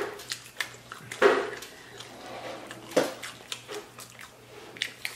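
Eating fried chicken wings: wet chewing and lip smacks, with sharp clicks as meat is pulled from the bones. The loudest wet bursts come just over a second in and about three seconds in.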